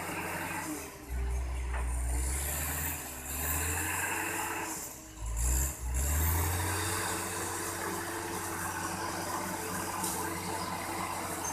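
Bulldozer's diesel engine running steadily, with heavier low rumbling surges as it works about a second in and again around five seconds. A high rising whine comes in twice over it.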